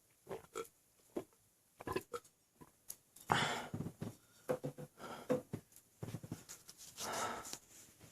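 A man hiccuping with an overfull stomach: a string of short, sharp hiccups, and two long breathy exhales about three and seven seconds in.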